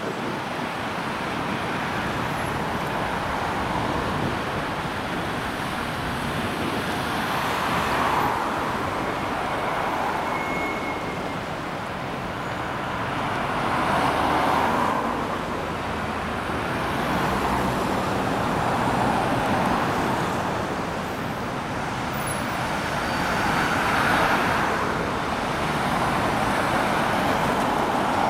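City road traffic: cars and vans driving past on a multi-lane street, a steady hum of tyres and engines that swells several times as vehicles pass close.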